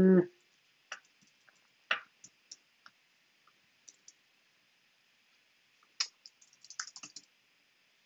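Computer keyboard typing: scattered single keystrokes about a second apart, then a quick run of several keys about six seconds in.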